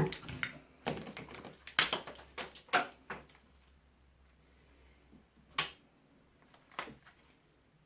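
Clicks and knocks of tools and parts being handled while taking apart an electric fan's motor: a busy run of clatter in the first three seconds, then two single knocks a little over a second apart.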